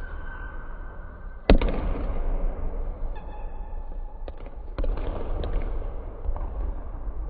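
Basketballs bouncing on a hardwood gym floor, echoing: one loud bounce about a second and a half in and a few softer ones later. Short sneaker squeaks come in between.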